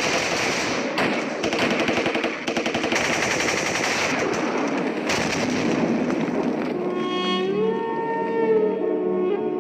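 Battle gunfire from archival war footage: rapid machine-gun fire and shots in dense bursts. About seven seconds in the gunfire gives way to a slow bowed-string melody with gliding notes.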